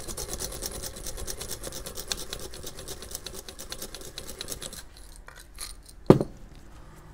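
Rapid, rhythmic scraping of a hard round object rubbed back and forth over a cloth mouse-pad sample, a rough test of how the fabric top layer wears. The scraping stops about five seconds in, and a single sharp knock follows about a second later.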